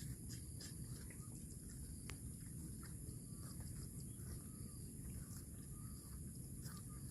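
Rural outdoor ambience: a steady high insect drone over a low rumble, with scattered faint clicks and short bird chirps. No mooing.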